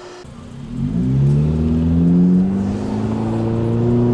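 Honda Civic engine accelerating, heard from inside the cabin: its pitch rises for about two seconds, then holds steady as the car cruises.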